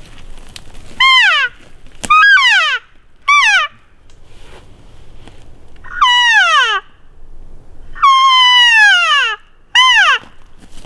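Cow elk mews: six loud, whiny calls, each sliding down in pitch, the fifth drawn out longest.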